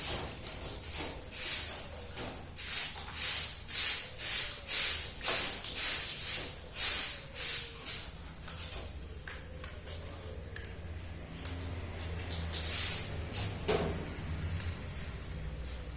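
Short rattling shakes, about two a second for several seconds, then fewer and fainter, with one more shake near the end.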